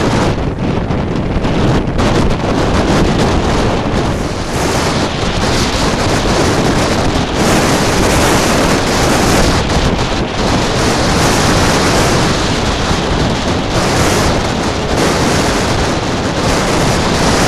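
Storm surf breaking on a rocky shore, with wind buffeting the microphone; a loud, unbroken rush that swells and eases.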